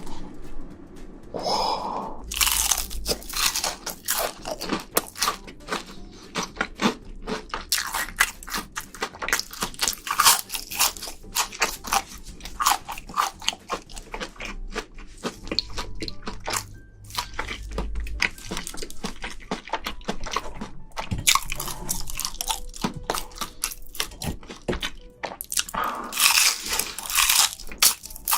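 Close-miked biting and chewing of crunchy shrimp in a mukbang, a dense run of sharp, irregular crunches.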